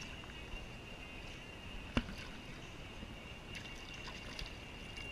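Handling of a rope fish stringer against the side of an inflatable boat: a sharp knock at the start and another about two seconds in, with faint small ticks later, over a steady thin high tone.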